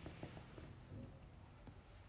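Near silence: room tone with a few faint light clicks.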